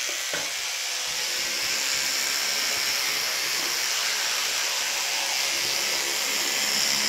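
Electric toothbrush running steadily with its head in the mouth, buzzing and scrubbing against the teeth.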